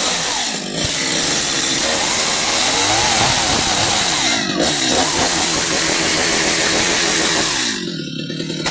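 New Stihl two-stroke chainsaw engine running at high revs, easing off briefly twice, then dropping to a steady idle near the end.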